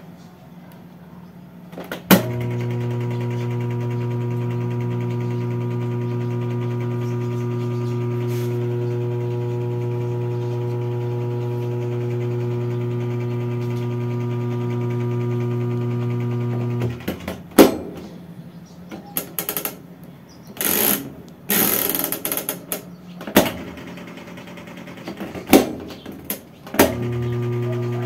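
A Whirlpool top-loading washing machine switches on with a click and gives a steady low electrical hum without washing or spinning: the fault in which it only hums. The hum cuts off with a click partway through, a few knocks and rattles follow, and it starts humming again near the end.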